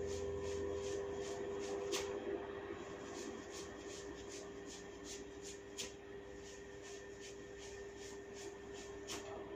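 Hair being gripped in tufts and tugged in a hair-cracking scalp massage, giving a regular run of small crackling snaps about three a second, with three sharper snaps. A steady low hum runs underneath.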